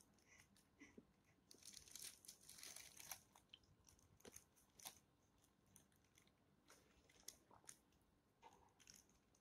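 Near silence, with faint scattered clicks and a short soft rustle about two seconds in.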